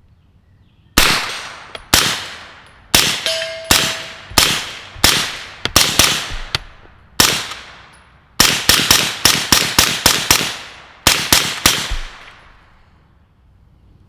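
B&T GHM9 9mm carbine firing semi-automatically through a CGS Kraken suppressor with Federal Synthetic 150-grain subsonic ammunition: about twenty suppressed shots at an uneven pace, quicker strings in the second half. The gun cycles every round without a stoppage.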